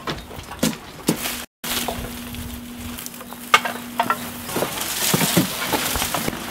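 Dry cut butterfly bush stems rustling and crackling as armfuls are carried, with scattered small snaps of twigs, over a faint steady hum.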